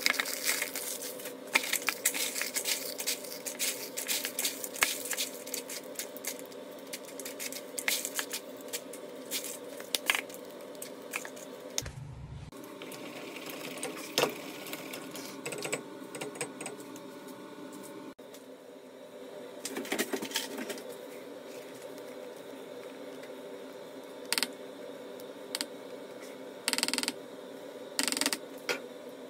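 Packaged biscuits snapped and crushed by hand into a plastic bowl, with rapid crackling and clicking, then a spoon knocking and scraping in a small saucepan of chocolate sauce. A steady hum runs underneath.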